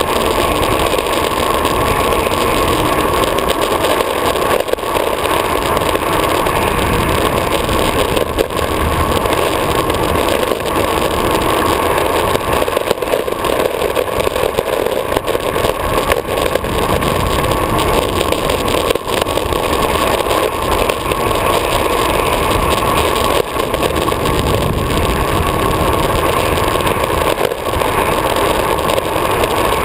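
Steady roar of a downhill skateboard's wheels rolling fast on asphalt, mixed with wind rushing over the board-mounted camera.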